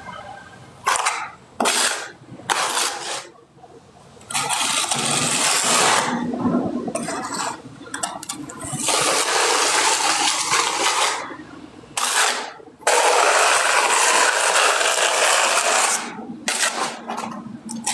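Repeated loud scraping, rushing noise in stretches of one to four seconds, broken by short gaps.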